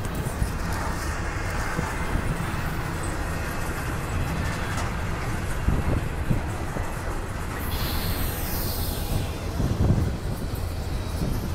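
Double-stack container cars of a long freight train rolling past: a steady low rumble of steel wheels on the rails, with occasional thumps and a brief high hiss about eight seconds in.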